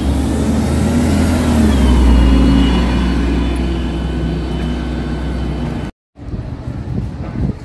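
Articulated city bus driving past close by and pulling away: engine running with a whining tone that slides up and down, loudest about two seconds in. It cuts off abruptly about six seconds in, giving way to quieter street noise.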